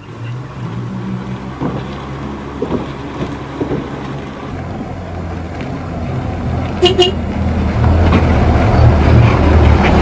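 Bus motorhome's diesel engine running as it drives slowly across a wooden plank bridge, growing louder as it nears and passes close by, with the loose planks knocking under its wheels. One brief horn toot about seven seconds in.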